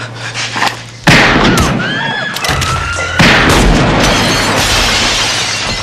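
Two loud revolver shots from a Smith & Wesson Model 29 .44 Magnum in a film soundtrack, about two seconds apart, each ringing on for a second or more.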